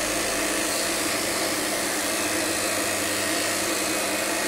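Corded electric dog-grooming clippers running steadily while shaving a dog's leg coat, a constant buzzing hum over an even hiss.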